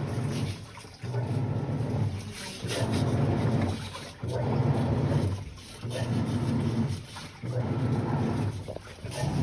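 Panasonic 12 kg washing machine agitating: the motor hums in strokes about every second and a half, each stroke with churning water. The owner treats the noise as abnormal for a machine only two years old.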